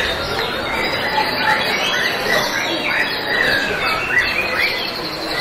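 Many caged white-rumped shamas (murai batu) singing at once in competition, a dense, unbroken tangle of overlapping whistles, chirps and sliding notes.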